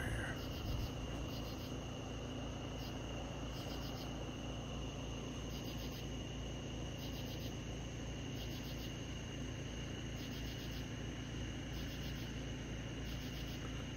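Crickets chirping in the night: short high chirps of several quick pulses each, coming roughly once a second, over a steady high tone and a low hum.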